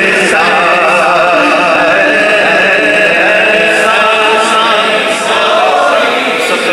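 A solo male voice reciting a naat into a microphone, singing long held notes with wavering, ornamented pitch.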